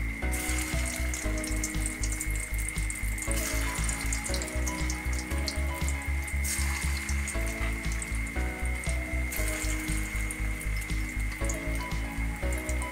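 Koftas deep-frying in hot oil in a wok, a steady crackling sizzle, under background music with a steady beat.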